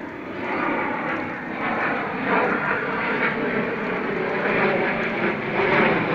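Steady, loud rushing noise with no clear pitch, swelling slightly after the first second.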